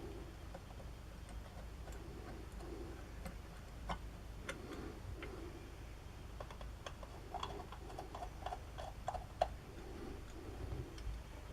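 Light metallic clicks and taps from small parts of a hand drill being handled and fitted during reassembly. They come scattered at first, then in a quick run of clicks with a slight ring about two-thirds of the way through, the sharpest click near the end of that run.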